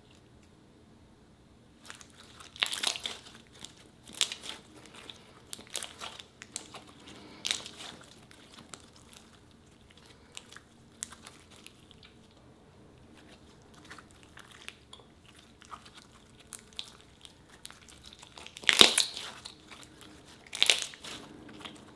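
Hands squeezing and pressing glitter jelly cube slime, giving a string of irregular crackles and pops that begin about two seconds in, with the loudest cluster near the end.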